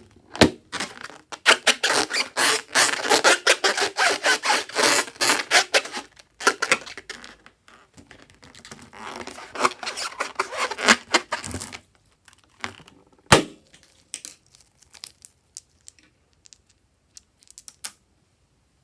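Slime being worked by hand, giving dense sticky crackling and clicking in two long spells. A single sharp snap comes about 13 seconds in, followed by a few scattered clicks.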